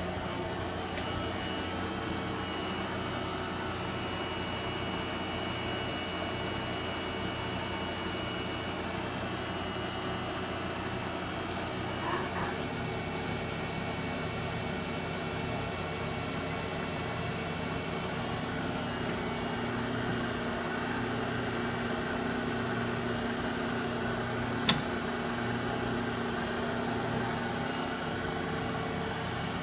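Okuma LH-35N NC lathe running, a steady machine hum with several thin whining tones over it, with a single sharp click about 25 seconds in.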